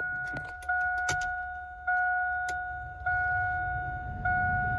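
Key-on warning chime from a Cadillac Escalade instrument cluster newly fitted in a GMC Yukon: a single-pitched ding repeating about every 1.2 seconds, each one fading before the next, with a few light clicks between. It shows the swapped cluster powering up with the ignition on.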